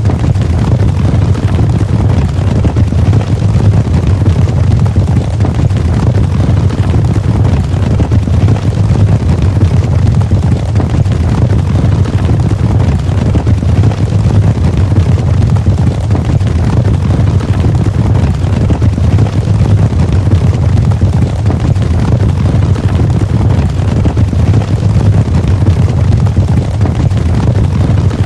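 Cavalry charge: many horses galloping together, their hooves merging into a loud, continuous low rumble.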